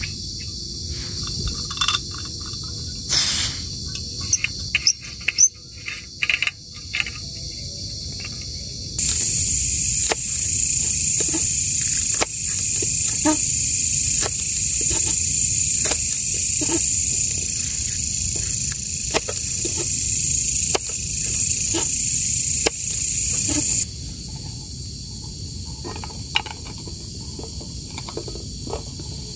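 Crickets trilling steadily, much louder for a long stretch in the middle that starts and stops suddenly. A few sharp clicks as a plastic bottle cap is handled in the first seconds, then a kitchen knife chopping spring onions on a wooden cutting board in regular knocks, a little more than one a second.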